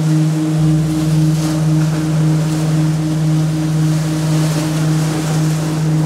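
A deep, steady gong drone that pulses slowly, over the hiss of waves breaking on rocks. A low rumble joins underneath about half a second in.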